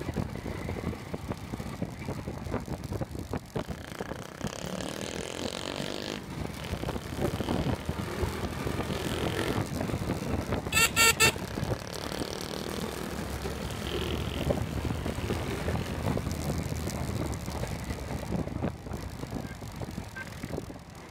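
Street traffic noise heard while moving along a city road: engines and road rumble. A vehicle horn honks briefly about halfway through and is the loudest sound.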